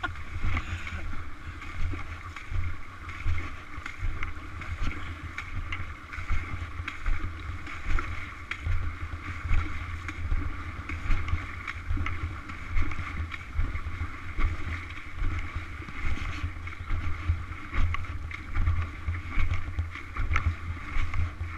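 Wind buffeting the microphone in uneven gusts over the steady rush of a fast-flowing river at a ford.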